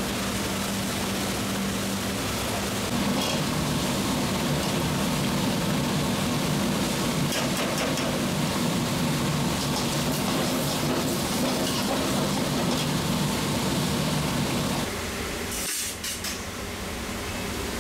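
A large metal pot of spicy seafood-and-chicken stew boiling hard, a steel ladle stirring it with occasional clinks and scrapes against the pot, over a steady kitchen hum. About fifteen seconds in, the hum cuts away to quieter room noise.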